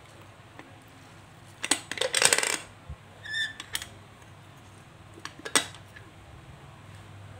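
Metal clatter and clinks from handling a lever hand-press juicer: a burst of sharp knocks, then a short ringing clink about halfway through, and a few more clicks as the press lever is lifted.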